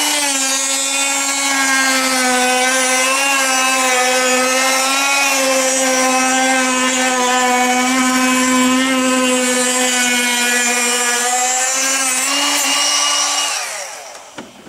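Wintersteiger Discman ski edge sharpener's electric motor running with a steady whine while its ceramic stone grinds along the ski edge in a sharpening pass. The pitch sinks slightly as the pass starts and rises again near the end. Then the motor winds down and stops.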